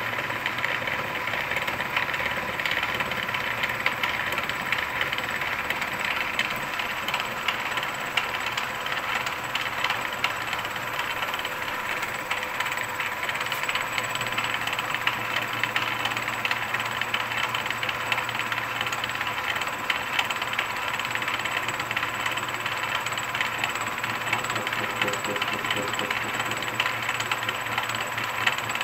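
Milling machine running a gear-cutting disc cutter through a 4340 chromoly steel gear blank on the finish-depth pass: a steady machine whine with the dense ticking hiss of the cutter teeth shearing steel.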